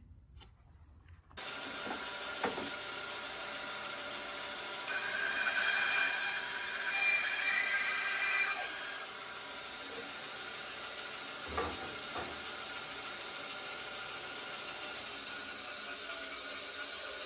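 Bandsaw switched on about a second and a half in and running steadily with a whine, then cutting through a walnut slab for a few seconds, when the sound gets louder and higher, before it runs free again.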